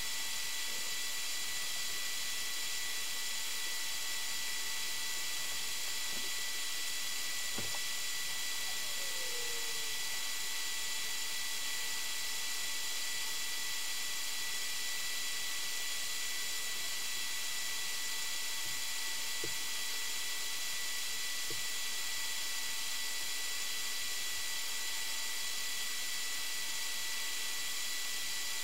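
Steady electronic hiss with faint constant high whine tones: the recording device's own self-noise. A few faint ticks sit under it, and a brief faint falling sound comes about eight seconds in.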